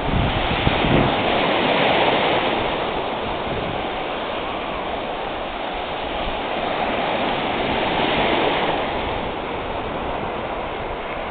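Ocean surf breaking and washing up a sandy beach in a steady rush, swelling about two seconds in and again near eight seconds.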